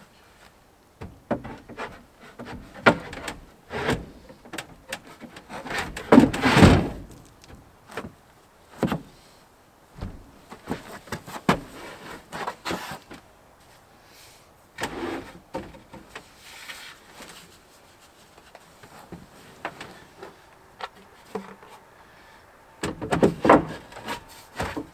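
Irregular clunks, knocks and scraping of camper parts being handled and fitted by hand, with the loudest bursts about six seconds in and again near the end.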